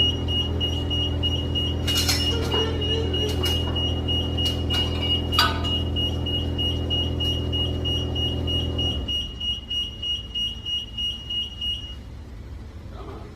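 A steady, high electronic beeping tone over the low, even hum of a running motor. The hum cuts off abruptly about nine seconds in, and there are a few sharp clicks early on.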